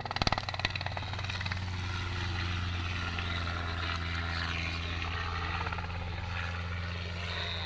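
Robinson R22 helicopter flying low-level manoeuvres: the steady low drone of its piston engine and two-blade rotor, with a rapid pulsing rotor chop that is strongest in the first second or two.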